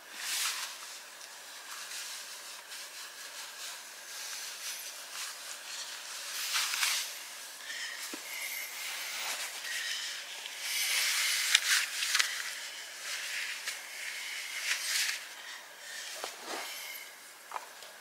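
Rustling and scuffing of clothing and hiking boots as a man pulls the boots on and laces them: irregular swishes that come and go, loudest about two-thirds of the way through.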